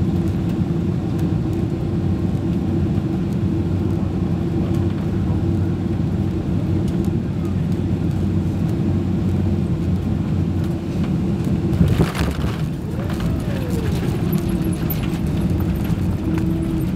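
Steady engine and airflow rumble inside the cabin of a Boeing 767-300, with a constant hum. About twelve seconds in there is a brief knock, followed by a faint tone that rises and then falls.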